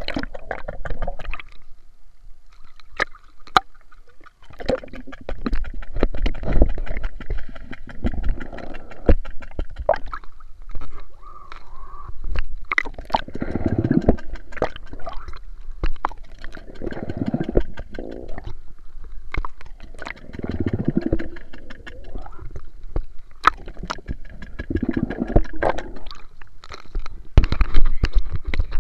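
Muffled swimming-pool water heard from underwater through an action camera's waterproof case: bubbling and sloshing, with scattered sharp knocks and low swells every few seconds.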